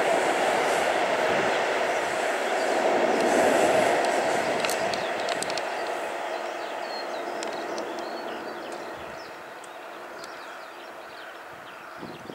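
Freight train of tank wagons rolling past on the track below, a steady rumble of wheels on rails that fades as the train pulls away. A few sharp clicks come about five seconds in.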